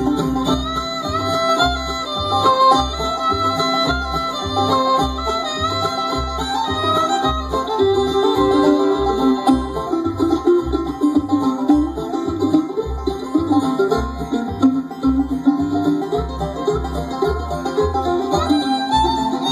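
Acoustic bluegrass band playing an instrumental break, with a five-string banjo taking the lead over guitar and fiddle and an upright bass keeping a steady beat.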